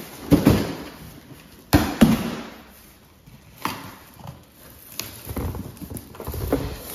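Cardboard box being handled and opened: a series of knocks and scrapes of cardboard, loudest in the first two seconds, then lighter bumps and rustles as the flap is pulled open.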